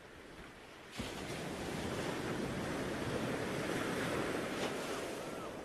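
Ocean surf washing onto a beach: a steady rushing wash that fades in and grows louder about a second in.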